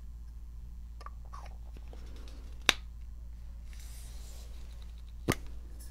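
Two sharp clicks about two and a half seconds apart, with a few faint ticks before them, from a makeup primer container being handled.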